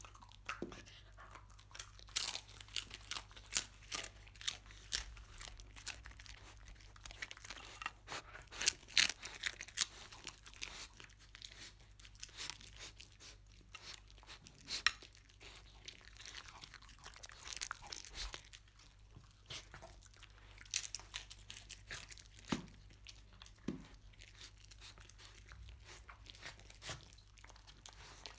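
A dog crunching and chewing crisp pieces of scorched-rice crust (nurungji): a quick run of sharp crunches in the first ten seconds or so, then more scattered bites.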